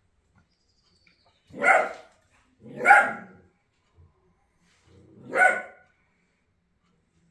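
A dog barking three times, each bark about half a second long, with a second or two between barks.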